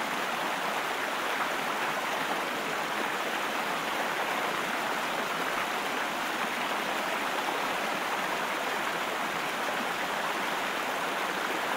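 White water pouring over the sloping face of a low weir, a steady, unbroken rush of water.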